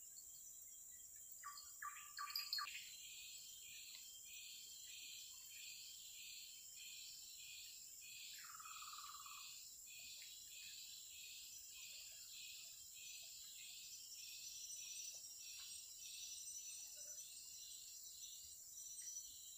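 Tropical forest insects and birds: a steady high insect hum under a faint call that pulses about twice a second. A few short bird calls sound about two seconds in, and a brief trill comes about eight seconds in.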